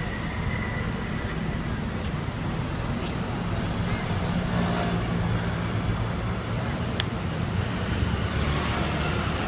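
Steady city street traffic: the low rumble of car, bus and scooter engines running on the road, with a single sharp click about seven seconds in.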